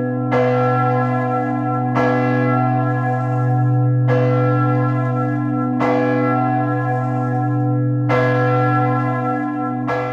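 A single church bell tolling, struck about every two seconds, six strokes in all, each leaving a long ringing hum that carries on under the next stroke.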